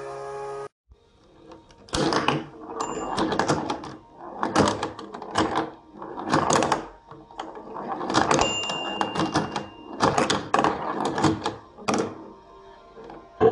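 LEGO pinball machine in play: the steel ball rattling and knocking across the plastic brick playfield and the flippers clacking, in repeated loud bursts. A couple of short high electronic beeps sound among them. A steady musical tone cuts off in the first second.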